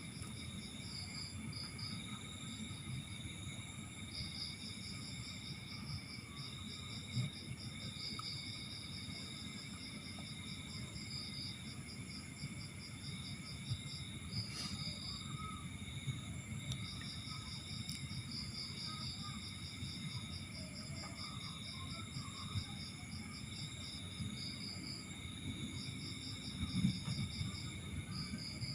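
Crickets chirping in long, rapid pulsing trills broken by short pauses, over a steady high insect drone and a low background rumble.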